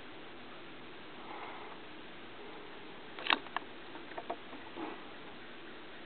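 A handful of sharp, irregular clicks and knocks over about two seconds in the middle, the first the loudest, over a steady faint hiss.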